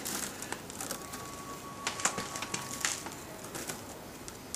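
Wicker strands crackling and clicking as they are twisted together and pushed down into the basket's woven rim. A thin steady tone sounds for about two seconds in the middle.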